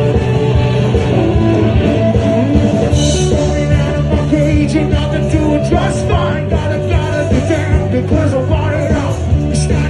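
Live rock band with a singer playing loudly through an outdoor stage PA, over a steady drum beat.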